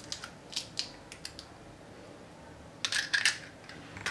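Scattered light clicks and clinks of eggshells being handled and set into a small ceramic bowl, with a louder short cluster of clinks about three seconds in.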